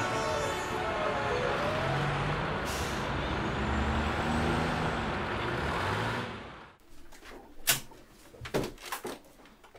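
Busy road traffic noise: vehicles running and passing, with some wavering pitched sounds in the mix. It cuts off abruptly, leaving a quiet room with a few sharp clicks and knocks.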